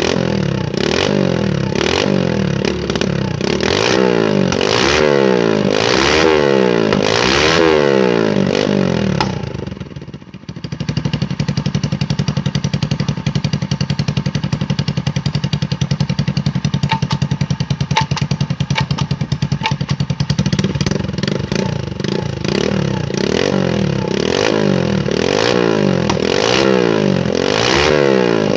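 Hand-built four-stroke chainsaw engine revved in repeated quick throttle blips, settling to a steady idle for about ten seconds in the middle before being blipped again. It picks up revs sharply, a quick throttle response that the builder credits to a new larger carburetor and intake.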